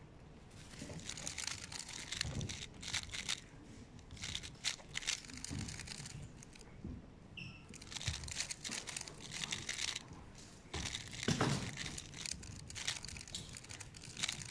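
Plastic 3x3 speed cube being turned by hand: quick bursts of clicking, rattling layer turns separated by short pauses.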